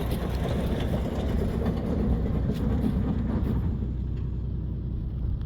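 An engine running steadily with a low rumble, easing off slightly near the end.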